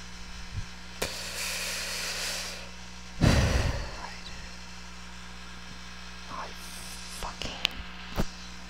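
Breath noises and handling of a corded handheld microphone held at the mouth: a soft hissy breath about a second in, a louder low puff into the mic a little after three seconds, and a few small clicks near the end, over a steady electrical hum from the mic line.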